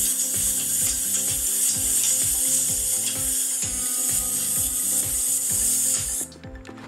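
Chopped onions sizzling in butter in a nonstick kadai while a wooden spatula scrapes and stirs them, over background music with a steady beat. The sizzle cuts off suddenly about six seconds in, leaving the music.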